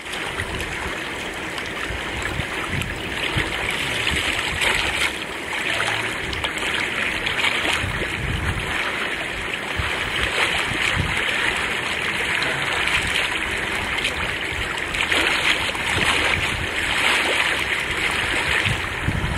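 Steady sound of running, bubbling water, a continuous rushing hiss that swells and eases slightly.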